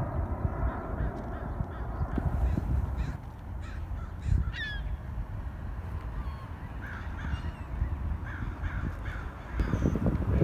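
A flock of birds calling, with repeated short, high, falling cries over a steady low rumble. A louder rush of low noise comes in near the end.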